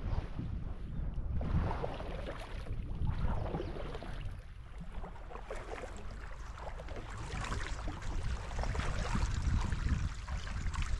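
Water lapping and splashing along the hull of an open canoe moving under a small sail, with wind rumbling on the microphone.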